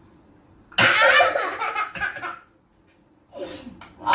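A toddler laughing in two loud bursts of high, squealing laughter, one about a second in and another near the end, with a quiet gap between.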